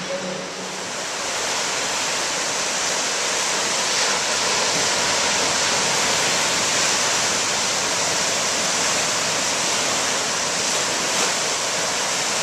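Ocean surf breaking and washing up the beach, a steady rushing noise that grows fuller about a second in.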